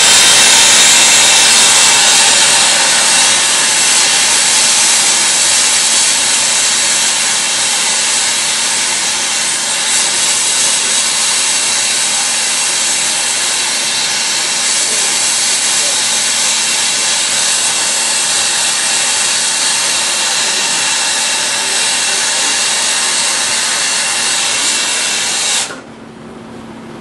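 Torch flame hissing steadily while heating a copper tube joint for brazing or soldering, with filler rod fed in. The hiss cuts off abruptly near the end.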